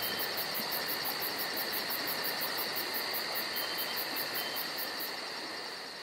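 Chorus of insects: a very high chirp pulsing about five times a second over a steady buzzing trill, fading out near the end.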